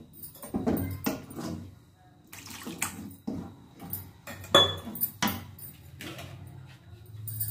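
Wooden spatula stirring a thin, freshly watered tomato-chilli gravy in a metal kadai, the liquid sloshing, with about half a dozen knocks and scrapes of the spatula against the pan's side.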